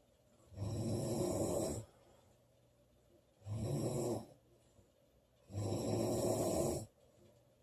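A woman snoring loudly as she sleeps: three rough snores, each about a second long, with quiet pauses between breaths.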